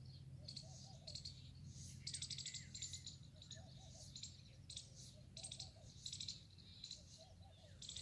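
Birds chirping outdoors: short, rapid high trills and chirps repeat throughout, with softer, lower warbling calls every second or two. Faint overall, over a low steady hum that weakens about two and a half seconds in.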